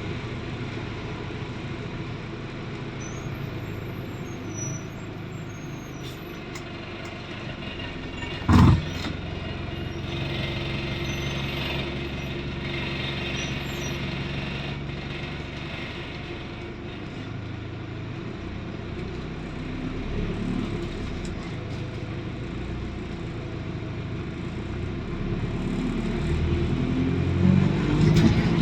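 ADL Enviro400 double-decker bus with a diesel conversion, its engine running steadily. A single short, loud blast of air or exhaust about eight and a half seconds in. The engine grows louder over the last few seconds.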